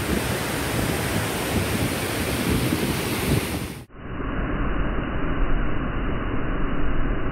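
Steady noise of wind and rushing water. About four seconds in it cuts off abruptly and is replaced by the duller, muffled rush of fast river rapids, with low wind rumble on the microphone.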